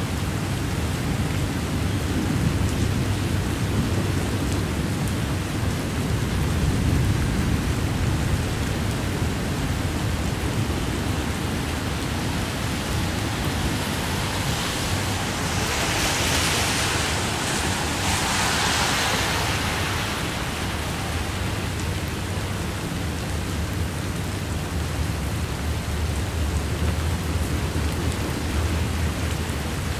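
Heavy rain falling in a thunderstorm over a steady low rumble from a passing double-stack freight train. A louder hissing surge swells for several seconds about halfway through.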